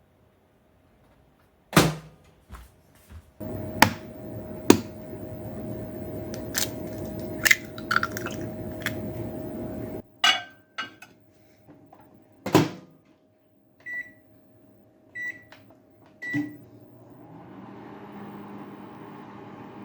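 Microwave oven warming food: a click, then a steady running hum that stops about ten seconds in. A loud clack follows, then three short high beeps about a second apart, and the oven starts humming again.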